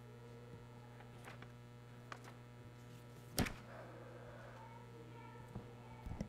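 Steady low electrical hum, with a few soft clicks and one loud thump about three and a half seconds in, as of something knocked or set down near the lectern microphone.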